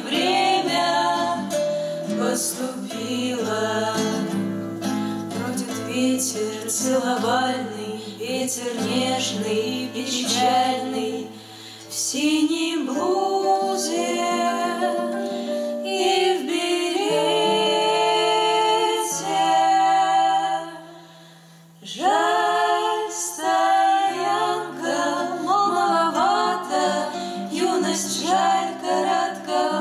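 Women's voices singing a Russian bard song together in harmony, accompanied by an acoustic guitar, with two brief breaks in the sound.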